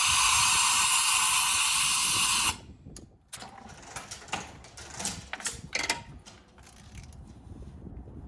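A loud, steady hiss cuts off abruptly about two and a half seconds in, followed by scattered metallic clicks and clinks of tools working at the engine's spark plugs.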